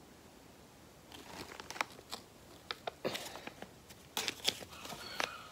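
A 10-manat banknote crinkling as it is handled and flapped, a scatter of sharp paper crackles starting about a second in and growing denser near the end.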